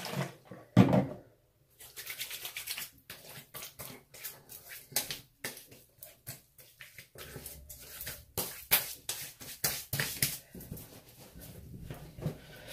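Hands applying an aftershave splash to the face: a louder knock about a second in, then a run of irregular light pats, rubs and rustles.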